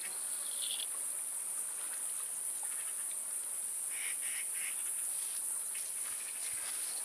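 Steady high-pitched drone of insects. A few brief scratchy sounds come about four seconds in.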